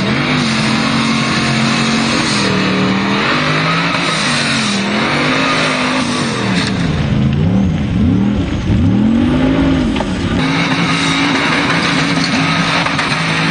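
Off-road vehicle engine revving hard, its pitch repeatedly rising and falling as the throttle is worked, over a steady rushing noise.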